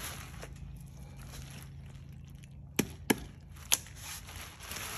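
Knife cracking through a large fish's rib bones while cutting the fillet free: three sharp snaps about three seconds in, over a low steady hum.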